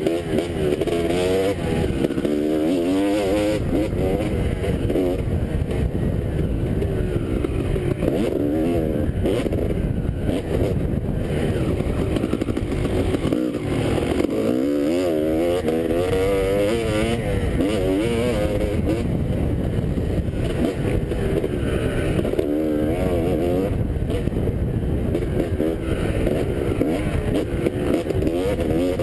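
Motocross dirt bike engine revving hard and then dropping back over and over, its pitch climbing and falling with throttle and gear changes, picked up by the rider's helmet camera.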